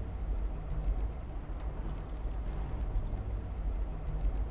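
A car driving: a steady low engine and road rumble.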